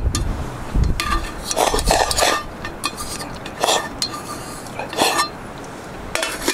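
Chopsticks scraping and clinking against an aluminium pot lid used as a bowl, then the lid handled over the metal cooking pot: a few scattered clinks and scrapes.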